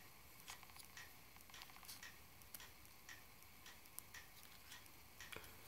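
Faint, irregular little clicks and taps of a SIM card being fitted by hand into a first-generation iPhone's metal SIM tray, over near-silent room tone.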